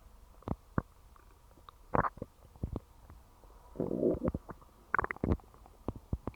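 Human stomach growling and gurgling: a string of irregular short pops and squelches, with a longer gurgle about four seconds in.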